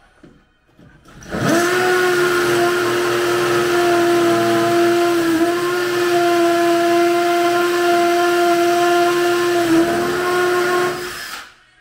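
Electric motor spinning up quickly to a steady whine, running evenly for about ten seconds, then winding down.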